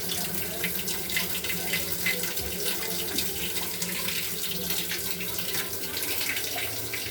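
Water running and splashing into a Sharp J-Tech inverter washing machine's drum as it fills, with a steady low hum underneath.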